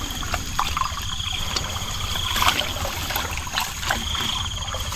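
Rain-fed water running and trickling through a field channel, with scattered small knocks and splashes. An insect trills high and thin in stretches of about a second, three times.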